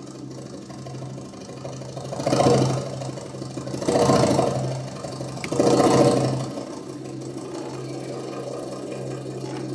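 Drum solo for belly dance: fast drum rolls swell loud three times, about two and a half, four and six seconds in, then settle into steadier, quieter playing. A low steady hum lies under it.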